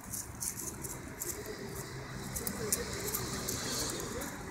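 Dry leaves and twigs crackling and rustling as a miniature schnauzer scrabbles through leaf litter and jumps up into an apple tree's branches, over a steady low hum.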